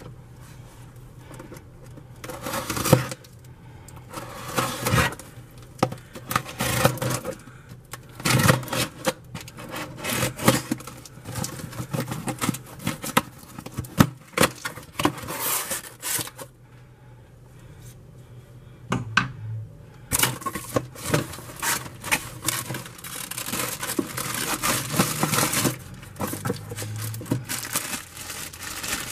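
A cardboard shipping box being opened by hand: packing tape scraped and torn and the flaps pulled open in irregular bursts. After a short lull, plastic packaging rustles and crinkles near the end.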